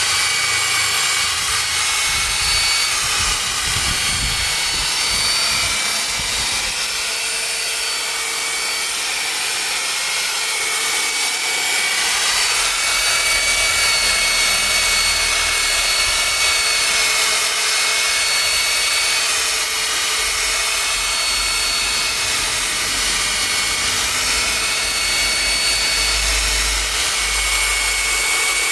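Electric machine polisher running steadily on paintwork, a high whine that wavers slightly in pitch as it buffs the shine back into the sanded finish.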